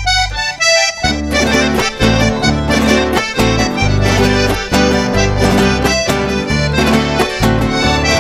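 Instrumental intro theme music: a quick melody of short notes over a bass line.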